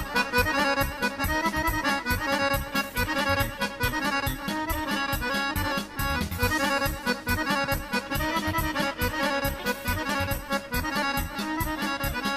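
Instrumental break in a folk song: accordion playing a quick melody over a steady beat.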